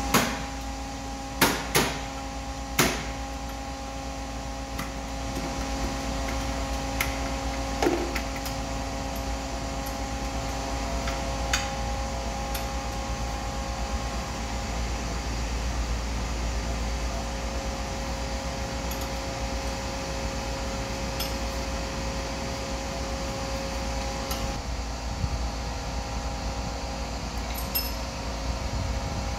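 Sharp metallic clinks and knocks of tools and parts being handled during air compressor servicing, four in quick succession at the start and a few more scattered later, over a steady machine hum.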